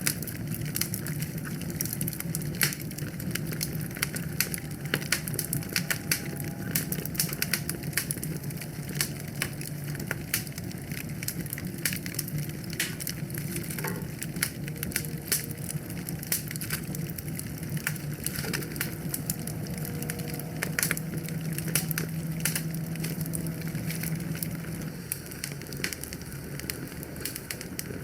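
Wood fire crackling, with irregular sharp pops and snaps scattered throughout over a steady low rush of the flames.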